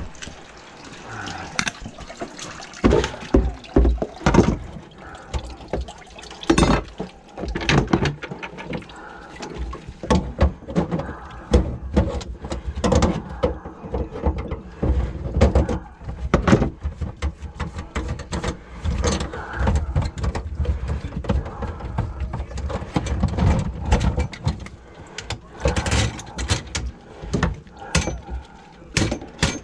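Irregular knocks, clicks and clatter from hands working on the drain pipes under a clogged kitchen sink, with water running into a bucket below.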